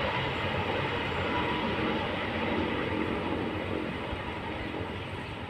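Train running at about 120 km/h on the rails, a steady rumble of wheels on track that grows fainter near the end as the train draws away.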